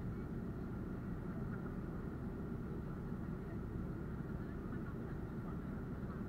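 Cabin noise of a jet airliner in flight, descending to land: a steady, low rumble of the engines and rushing air, heard from a window seat.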